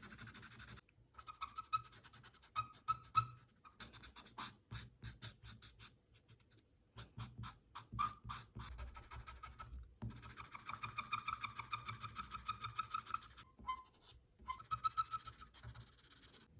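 Drawing tool scratching and squeaking on paper in short strokes, with quick scribbling in the middle and a long squeaking drag about ten seconds in.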